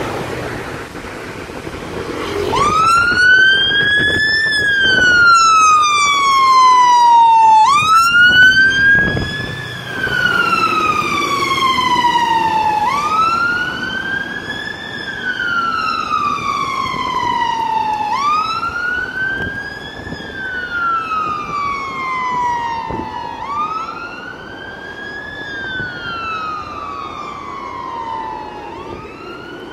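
Siren of a London Fire Brigade fire rescue unit sounding a slow wail that starts a couple of seconds in, rising quickly and falling slowly about every five seconds, and growing fainter as the truck drives away. Before the siren starts there is passing traffic and wind noise.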